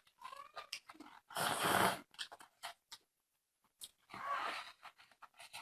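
A person chewing and smacking on fatty pork belly, wet mouth noises coming in irregular bursts, with a pause about three seconds in.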